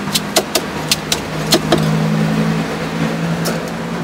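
A cleaver chopping roast pork belly on a chopping block: a quick run of about seven sharp chops in the first two seconds. A steady low engine hum from a vehicle rises beneath it from about a second and a half in.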